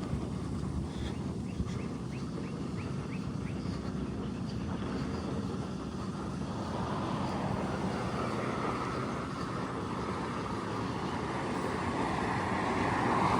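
Outdoor street ambience: a steady hum of passing traffic, with a vehicle growing louder near the end.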